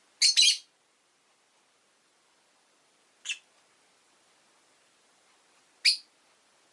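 Rosy-faced lovebird giving short, sharp, high-pitched chirps: a loud double chirp just after the start, a fainter single one about three seconds in, and another loud one near the end.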